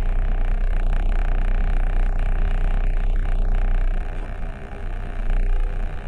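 Steady low rumble of a moving car, with road and wind noise; it eases and turns uneven about four seconds in.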